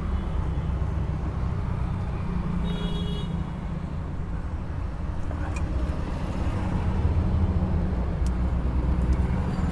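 Steady low background rumble and hum, with a few faint clicks of wires being twisted and stripped by hand.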